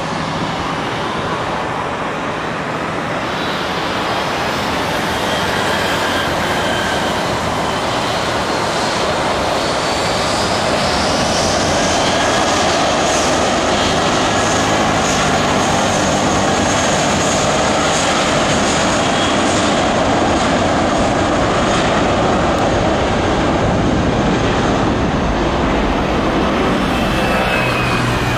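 Airbus A320's jet engines spooling up for the takeoff roll: a steady jet noise that grows louder about ten seconds in, with a high whine rising over it and then holding.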